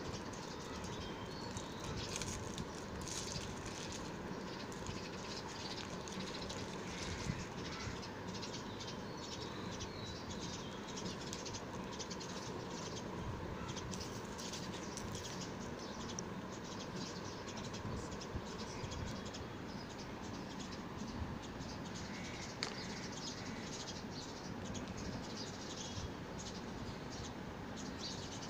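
KitKat wrappers of foil and paper crinkling and rustling in the hands as the chocolate fingers are unwrapped, in many small irregular crackles over a steady background hiss. Faint bird chirps come a few times in the second half.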